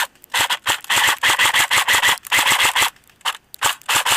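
Echo1 Red Star AK-47 airsoft electric gun, stock, firing bursts of full-auto: strings of rapid, evenly spaced cracks broken by short pauses, with a couple of shorter bursts near the end as the magazine runs down.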